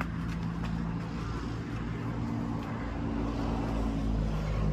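An engine running steadily: a low droning hum whose pitch shifts slightly past the middle.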